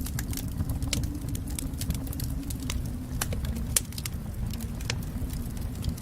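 Wood fire burning in a fireplace: a steady low rumble of flames with irregular sharp crackles and pops, one louder pop near the middle.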